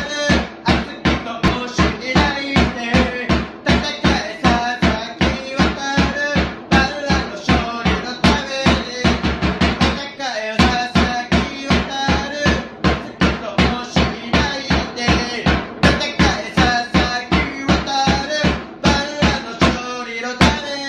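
Football supporters' chant sung to a steady drum beat, the beat pausing briefly about halfway through.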